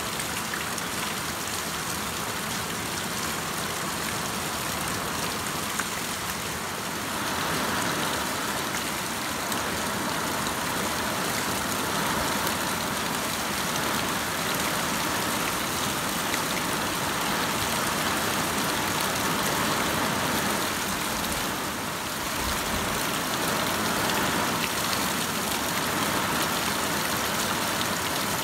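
Heavy rain falling steadily, with water streaming off the roof edge. The rain grows louder about seven seconds in.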